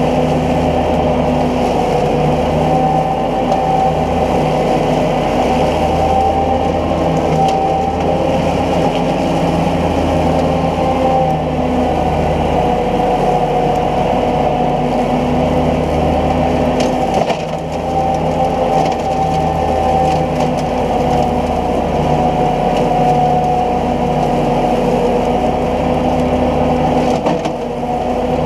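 New Holland Boomer 50 compact diesel tractor running steadily under load while it drives a three-blade Sidetrax SM150 rotary cutter that mulches tall grass. The engine note holds even, with a brief dip in level about halfway through and again near the end.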